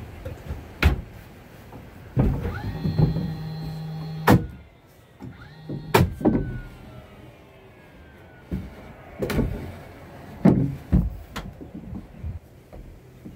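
Cordless drill driving screws through wooden purlins into the roof trusses: the motor spins up and runs steadily for about two seconds, stops with a sharp knock, then runs again briefly. Sharp knocks of wood and tools come throughout.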